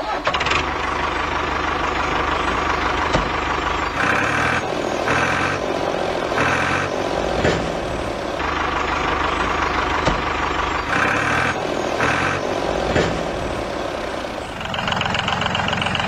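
Recorded tractor engine sound running steadily for a toy tractor, with short spells of a brighter, harsher tone repeating a few times.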